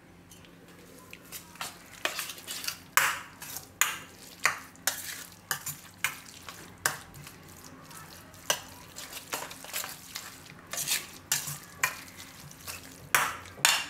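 A metal spoon stirring and scraping around a stainless steel bowl, mixing soft mashed roasted eggplant with chopped greens and spices. Irregular scrapes and clinks start about a second in.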